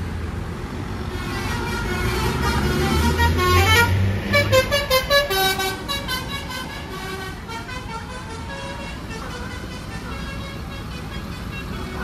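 A bus's basuri telolet horn plays a melody of quick, stepped notes over the rumble of the bus's engine. The notes are loudest about four to five seconds in and fade out after about eight seconds.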